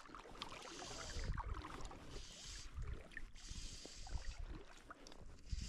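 River water sloshing and lapping close to an angler wading while fly casting, with uneven low rumbles and patches of hiss that come and go.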